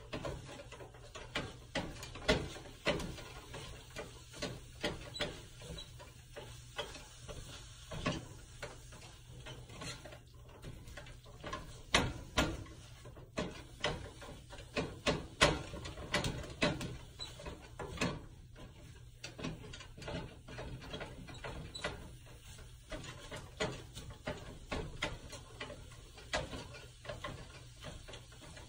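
Black plastic slotted spatula chopping and scraping scrambled eggs and ham in a skillet, knocking against the pan bottom in irregular clicks and taps, several a second, over a steady low hum.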